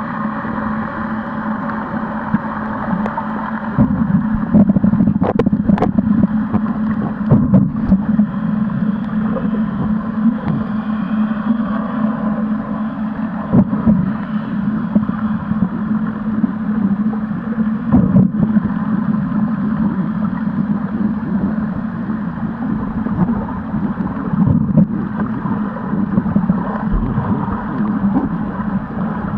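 Muffled underwater sound picked up by a camera in its waterproof housing: a steady low motor hum, with a few knocks and bumps against the housing.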